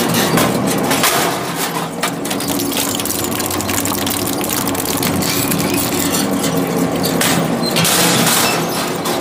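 Twin-shaft shredder running, its hooked cutter rotors turning with a steady motor and gear hum, while white plastic sheets crack and snap as the cutters tear them into strips.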